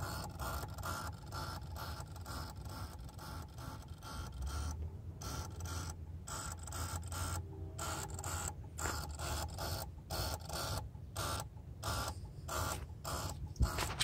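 Rapid, even clicking, about four clicks a second, over a low steady hum.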